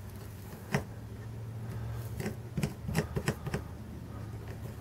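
Soldering work on a copper-foiled stained-glass panel: scattered light clicks and taps, most of them about two to three and a half seconds in, over a steady low hum.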